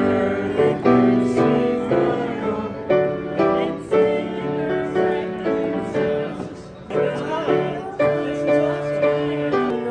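Music led by piano, with notes struck in a steady pattern.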